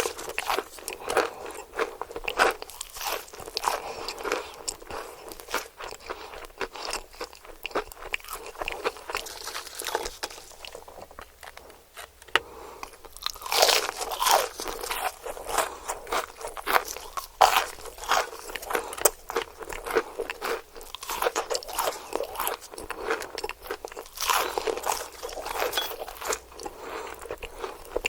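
Close-miked crunching and chewing of crispy KFC fried chicken: bites crackling through the breading in dense runs, quieter chewing about ten seconds in, then louder clusters of crunches about halfway through and again near the end.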